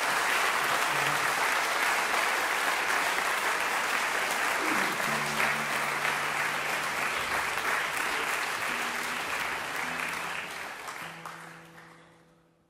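Audience applauding steadily, fading out over the last two seconds or so.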